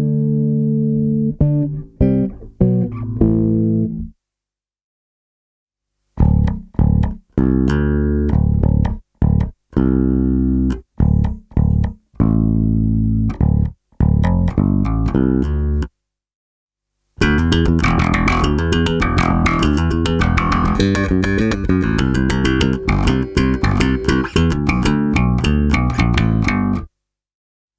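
Warwick Corvette six-string bass with a bubinga body, wenge neck and Seymour Duncan Basslines humbuckers, played alone through its active preamp on both pickups. After a few seconds of silence it is played with the EQ set to bass cut: single plucked notes with short breaks, then a fast, busy run of notes about halfway through that stops shortly before the end.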